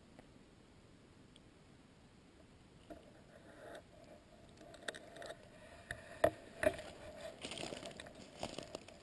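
Slow, cautious footsteps through dry bracken and leaf litter. The first few seconds are near quiet, then crackling and rustling build up, with two sharp twig snaps about six seconds in.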